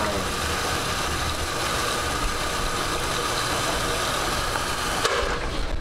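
Premixed sanitizing solution gushing from a dispenser hose into a plastic bucket in a stainless-steel sink, filling and foaming as a steady rush. The flow stops about five seconds in.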